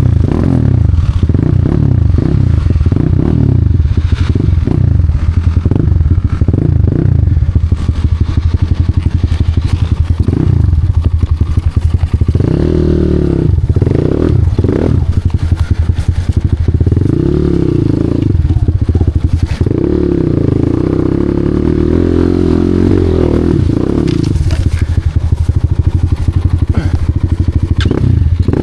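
Off-road enduro motorcycle engine revving, the revs rising and falling constantly as the throttle is worked, with a few higher-revving stretches lasting a few seconds each in the second half.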